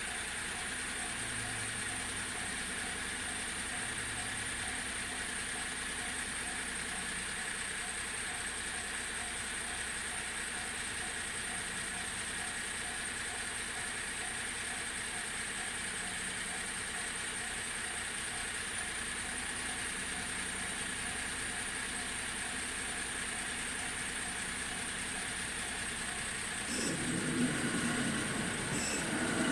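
Level-crossing alarm sounding steadily in a regular, evenly repeating beat; this is the JR standard electronic crossing warning sound. Near the end a train draws up and the rumble grows louder.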